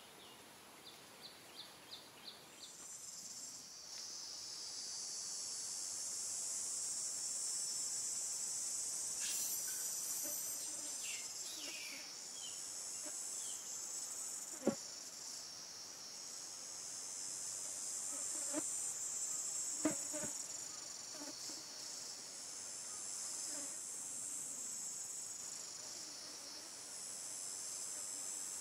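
High-pitched insect chorus that rises in after a few seconds and then swells and fades in long waves. A few short ticks come near the start, and two sharp knocks in the middle.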